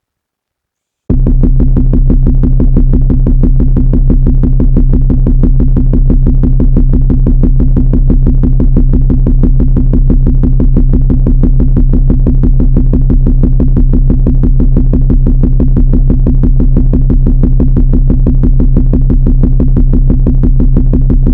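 A loud electronic synthesizer tone held at one low pitch, with a fast, even pulse, starting about a second in.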